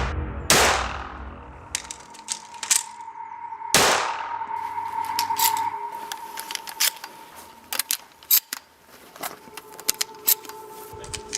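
Shotgun sounds: two loud shots with fading tails, one about half a second in and one near four seconds, followed by a scattered run of sharp metallic clicks and clacks, over a faint steady tone.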